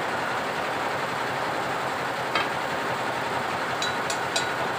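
A few light clinks of loose metal Vespa engine parts being handled: one about halfway, then three in quick succession near the end. A steady background hiss runs under them.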